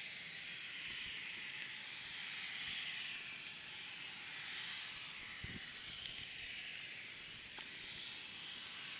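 Twin turbofan engines of a Dassault Falcon 2000EX business jet at taxi power: a steady high hiss that swells and eases slightly as the jet taxis past.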